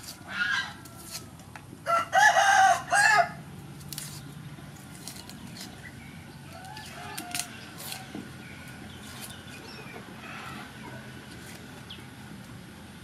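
A rooster crows once, about two seconds in, in a long call that is the loudest sound here, after a shorter call just before. Faint scattered clicks and crackles of dry onion skin being peeled off with a knife.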